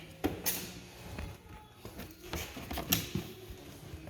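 Hands working a truck's plastic interior door panel: a few sharp clicks and light knocks, scattered and irregular, loudest a little after the start and again around the three-second mark.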